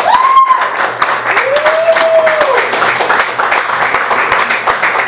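Audience applauding, a dense steady patter of claps, with two drawn-out cheers rising and falling in pitch near the start.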